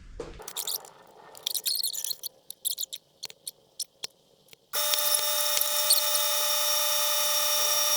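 Inflating a freshly mounted motorcycle tire with air: a series of clicks and short hisses as the air chuck is worked onto the valve, then, nearly five seconds in, a steady high whine starts suddenly as air flows in.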